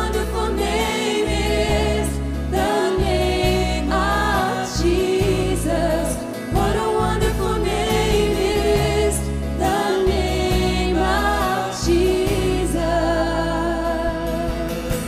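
Live contemporary worship music: several voices singing a slow melody together over a band of acoustic guitar, bass and keyboard.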